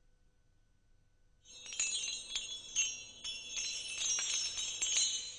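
Near silence, then about a second and a half in a bright, shimmering chime effect begins: many quick high tinkles like wind chimes, fading near the end.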